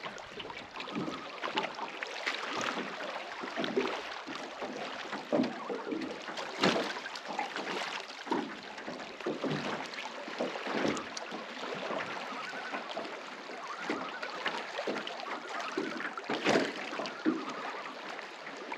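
Rain falling, an irregular spatter of drops over a steady hiss.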